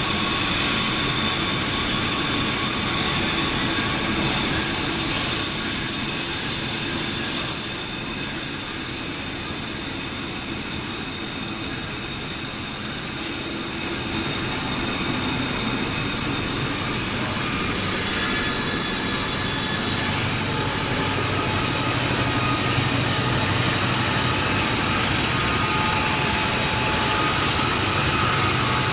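Steady mechanical noise from a powder-coating spray booth: the extraction fan running, with the hiss of compressed air from the powder spray gun. A louder high hiss for a few seconds stops abruptly about seven seconds in.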